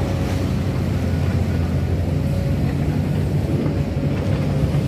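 Komatsu PC300 hydraulic excavator's diesel engine running under load as it digs its bucket into a coal pile: a steady, low, even rumble.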